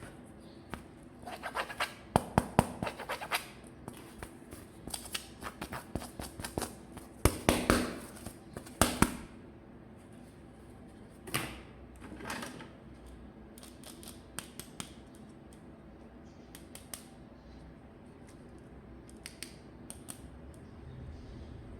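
Toy packaging being handled and opened by hand: a run of sharp clicks and taps with bursts of scraping, busiest in the first nine seconds, then sparser taps.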